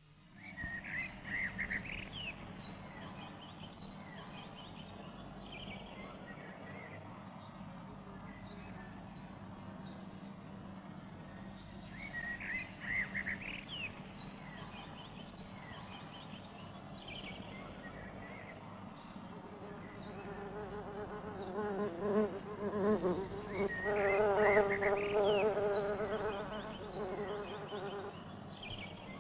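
Bees buzzing among blossom, the buzz swelling close in the last third, with short bursts of bird chirping now and then.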